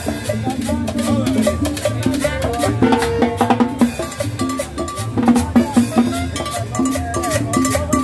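Live Latin band playing salsa music with a steady drum beat: upright bass, trumpet and timbales.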